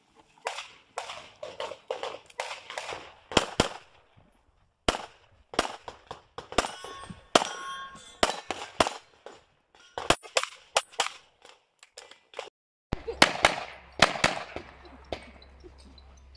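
Pistol shots fired in quick strings, often in close pairs, with short pauses between strings as the shooter moves through an IPSC stage. The sound cuts sharply about thirteen seconds in, and another string of rapid shots follows.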